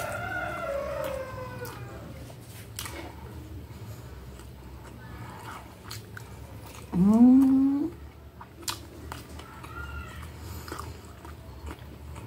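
Close-miked chewing and mouth sounds of someone eating spaghetti and a hamburger patty, with a few sharp fork clicks. There is a short falling hum at the start and a louder rising closed-mouth "mmm" about seven seconds in.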